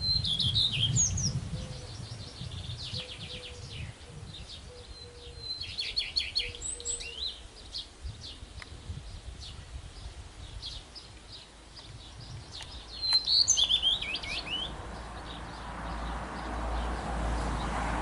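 Male common redstart singing short song phrases a few seconds apart. Each phrase is a high thin note followed by a quick run of repeated notes and a twittering end. A low rushing noise rises over the last few seconds.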